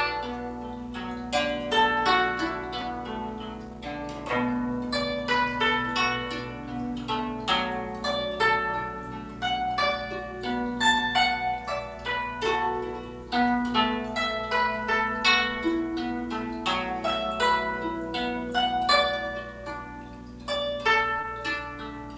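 Guzheng (Chinese zither) playing a melody: a quick stream of plucked notes that ring and fade, over held low notes that waver in pitch.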